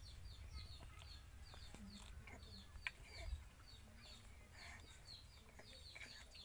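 Faint chirping of small birds: many short high calls over and over, with a low background rumble beneath.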